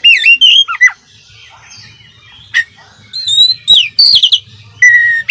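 Oriental magpie-robin (kacer) singing: loud whistled phrases of sliding, looping notes, a quieter gap of about two seconds in the middle, then more phrases and a held even note near the end.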